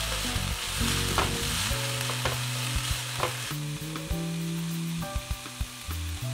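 Finely chopped vegetables sizzling in oil in a frying pan. A silicone spatula scrapes and taps against the pan a few times in the first half as they are stirred.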